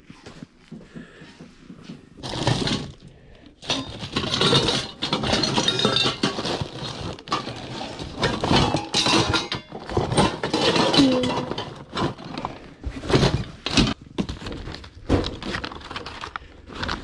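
Hands rummaging through stored household items: hard objects clinking and clattering against each other, with rustling, in irregular bursts.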